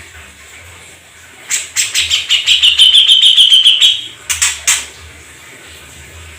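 A songbird's loud, fast trill of rapidly repeated notes, starting about a second and a half in and lasting about two and a half seconds, followed by two short sharp calls.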